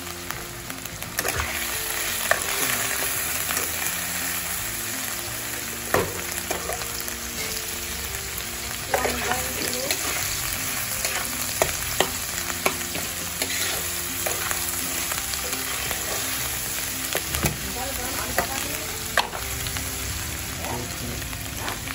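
Onions, tomatoes and ginger-garlic paste sizzling in hot oil in a kadai, with a metal spatula stirring and scraping, clicking against the pan again and again. The sizzle grows louder about a second in.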